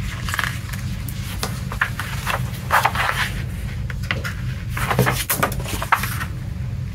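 Glossy paper booklet and folded card insert being handled: pages turned and panels unfolded with a series of short rustles and light taps, over a steady low hum.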